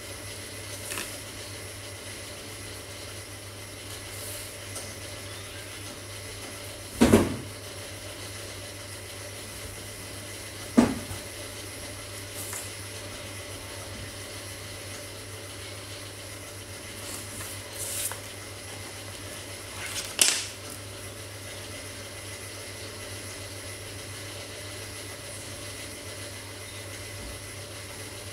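Steady low room hum, broken by a few short handling sounds from coloring markers and paper. There is a solid knock about seven seconds in and a sharp click near eleven seconds. Brief scratchy rustles come around eighteen and twenty seconds.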